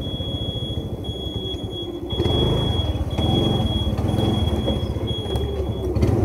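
Motorcycle engine running at low speed, getting louder about two seconds in. A thin, steady high tone runs alongside it and breaks off briefly about once a second.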